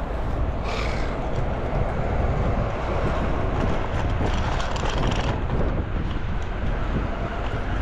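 Steady street noise of road traffic going by, with a deep rumble and a brighter hiss swelling briefly about a second in and again around four to five seconds in.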